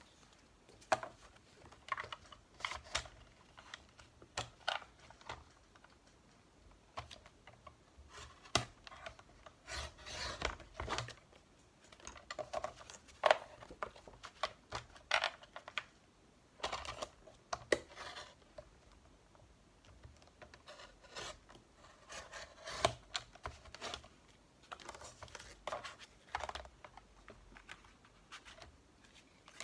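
Paper being cut on a sliding paper trimmer: the cutter scraping along its rail in short, irregular strokes, mixed with paper being handled and light clicks on the board.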